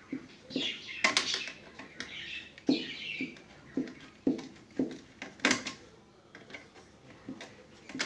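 A screwdriver driving a screw into the plastic wall of an ice box, with a series of short hollow knocks and clicks as the hand turns and regrips. High chirping squeaks come in the first three seconds.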